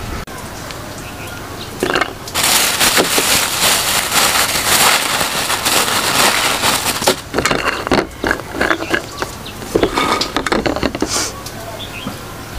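Clear plastic bag of peeled garlic cloves crinkling loudly as a hand works inside it for several seconds, then scattered crinkles and clicks.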